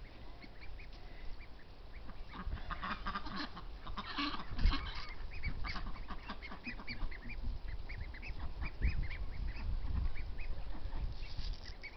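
Young Pekin ducks and a Welsh Harlequin duckling calling, many short, high calls in quick succession through most of the stretch, with low rumbles on the microphone.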